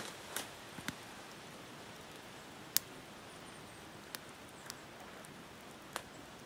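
Small wood campfire crackling: a scattering of about six sharp pops, the loudest about three seconds in, over a faint steady hiss.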